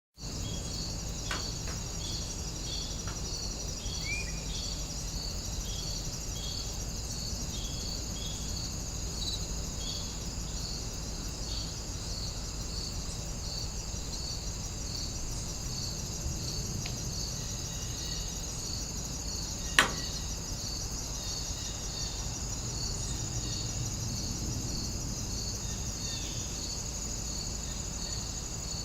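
Crickets and other insects chirping steadily in a warm outdoor ambience: a high continuous trill with a regular pulsing chirp repeating about every two thirds of a second, over a low steady rumble. A short bird call sounds about four seconds in, and a single sharp click about twenty seconds in.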